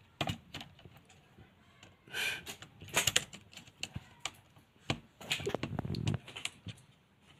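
Irregular small clicks, taps and scrapes of hands working wires into a plastic ceiling rose's terminal block with a screwdriver, with a short scrape about two seconds in and a denser run of taps near the end.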